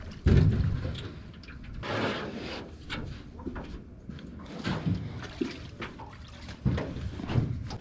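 Water splashing and sloshing around an aluminium canoe as it is paddled in to a wooden dock, with a heavy thump just after the start and scattered knocks as a person climbs out onto the dock.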